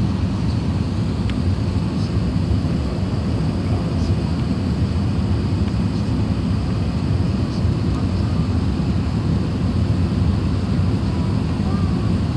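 Airbus A380 cabin noise: a steady low rumble of engines and airflow, with a few faint ticks.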